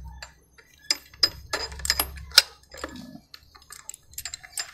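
Irregular metallic clicks and clinks of a wrench and a steel crankshaft installer tool being worked on a scooter crankcase, as its bolt is turned to pull the crankshaft in.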